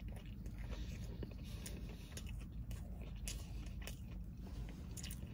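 Close-up chewing of a breaded chicken sandwich: irregular small wet clicks and crunches from the mouth, over a steady low hum.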